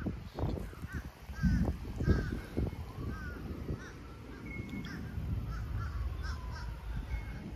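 Birds giving a string of short, quick calls, repeated many times, over a low, uneven rumble of wind on the microphone.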